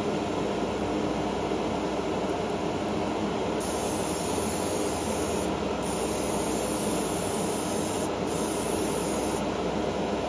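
Gravity-feed airbrush spraying heavily water-thinned rust paint: a hiss that starts about a third of the way in, pauses briefly twice and stops near the end. Under it runs a steady mechanical hum.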